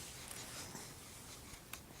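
Quiet room tone with a few faint clicks near the end.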